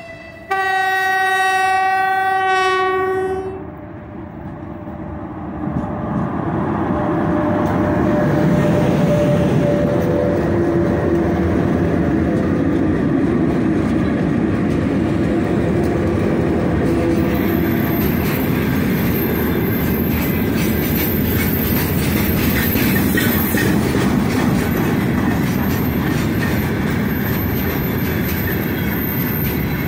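A horn blast of about three seconds from the lead 2ES5K Ermak electric locomotive, then the four-unit locomotive set passes close by with a loud rumble and a steady electric whine. From about seventeen seconds in, freight wagons roll past with a continuous clickety-clack of wheels over rail joints.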